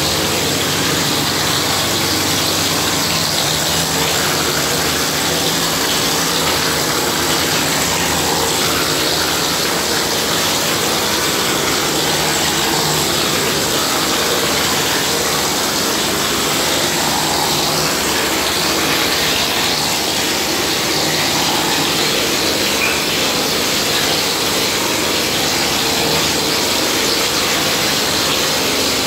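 Gypsum plaster spraying machine running steadily, its mixer and pump sending plaster through the hose to a spray gun that blows it onto the wall: a constant machine drone under a loud, even hiss.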